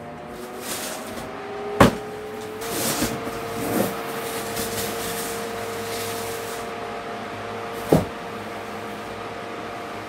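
Philco Turbo pedestal fan with a 10-blade polycarbonate propeller running with a steady motor hum and air rush. A click about two seconds in, after which the hum rises slightly in pitch as the fan is switched up a speed, and a sharp knock near eight seconds as the cardboard box beside the fan tips over onto the floor.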